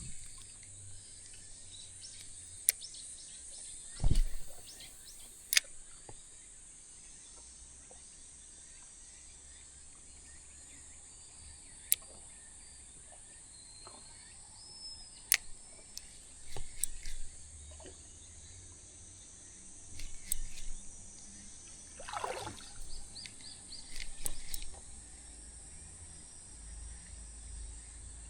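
A steady high-pitched insect drone, with scattered sharp clicks and knocks and a few short bursts of rustling and handling.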